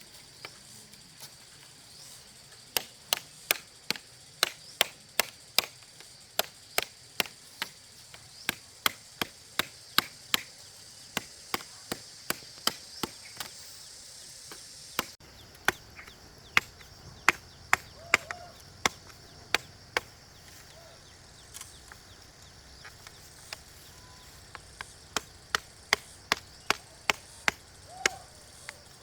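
Bamboo being chopped with a blade: sharp strokes at about three a second, in runs broken by short pauses.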